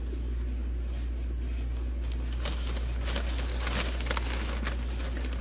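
Cotton rag rubbing and wiping an oily finish off a carved wooden box, a scratchy rustling with light crackles that gets busier about two seconds in. A steady low hum runs underneath.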